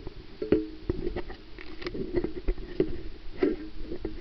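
Underwater handling noise from a pole-mounted camera being moved over the seabed: irregular clicks and knocks over a low steady hum.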